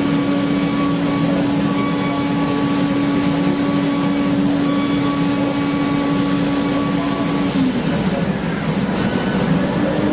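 Factory machining equipment running, with a steady hum over dense mechanical noise. The hum cuts out about three-quarters of the way through and comes back at the very end.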